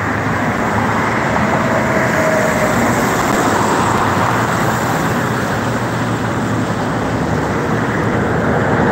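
Road traffic on a multi-lane road: a steady wash of car tyre and engine noise as cars drive past.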